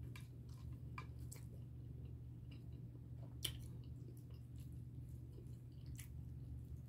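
A person chewing food quietly with the mouth closed, with small clicks of a knife and fork cutting against the dish, the sharpest about halfway through, over a steady low hum.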